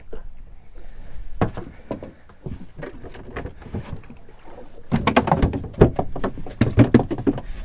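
Irregular knocks, clicks and clatter of handling on a small fishing boat, sparse at first and busiest in the second half.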